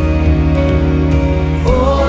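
Background music: a pop song with sustained chords, and a singing voice coming in near the end.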